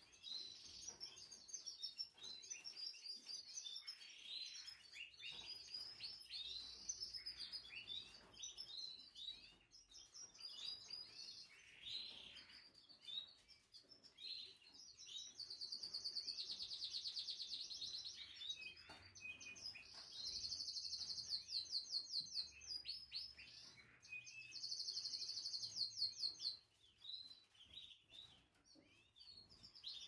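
Canaries chirping and singing: many short high chirps, with three fast trills in the second half, each lasting two to three seconds.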